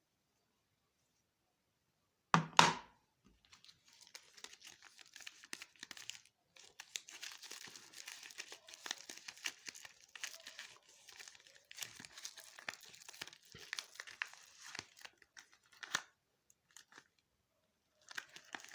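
A soap wrapper being torn open and crinkled by hand. A loud sharp rip about two seconds in is followed by a long stretch of dense crinkling and crackling, with a few last rustles near the end.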